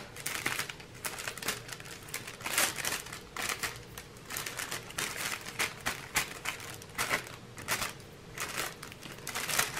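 Plastic packaging crinkling, with many irregular small clicks and rustles, as spilled diamond painting drills are gathered up by hand.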